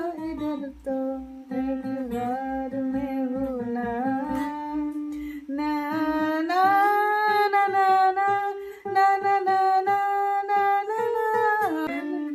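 Acoustic guitar strummed steadily, with a voice singing a slow melody over it. The singer holds long notes through the second half.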